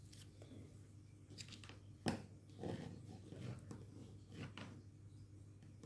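Faint rustling and scattered light clicks of paper craft pieces being handled on a work table, with one sharper click about two seconds in.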